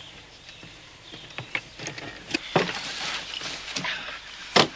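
Knocks and scrapes on a wooden plank floor as its boards are handled and pried at, in a run of short sharp clicks with a longer scraping stretch, the loudest a single sharp knock near the end.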